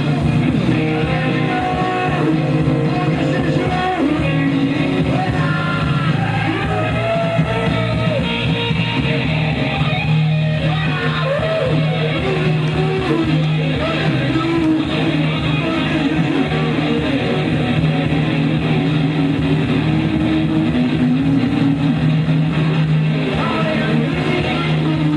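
Live blues-rock band playing, led by an electric guitar whose notes bend up and down in pitch over steady bass and drums.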